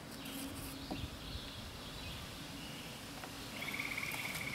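A few faint light clicks of small tools handled on a wooden board, then, about three and a half seconds in, a small animal's steady, high, rapidly pulsing trill.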